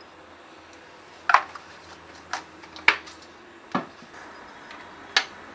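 Metal kitchen utensils clinking against a cooking pot: five short, sharp clinks at uneven intervals, each with a brief ring.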